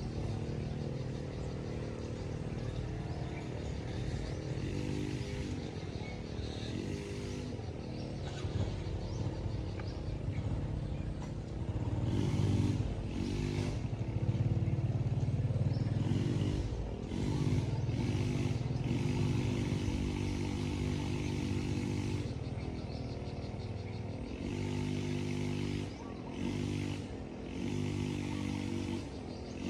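An engine running steadily, louder for a few seconds from about twelve seconds in and again from about seventeen, with several short dips near the end.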